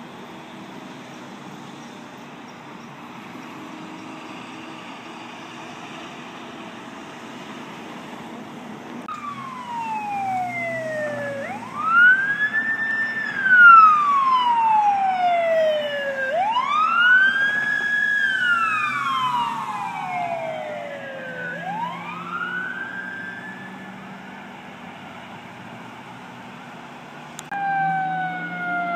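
Emergency vehicle siren wailing in slow rise-and-fall cycles of about five seconds, loudest near the middle. Another siren starts near the end, over a steady distant city hum.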